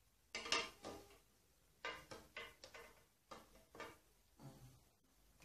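Small plastic phone tripod being handled while its phone clamp is tried for fit: a run of irregular plastic clicks and clacks, the loudest near the start.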